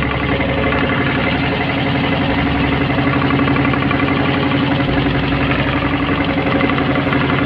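Motorboat engine running steadily at a constant speed, with a fast, even throb.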